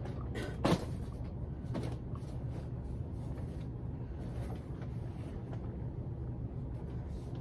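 Puppy gnawing on marrowbone biscuit treats, faint irregular clicks and crunches of teeth on the biscuit, over a steady low hum. A sharp knock sounds about a second in, and a weaker one shortly after.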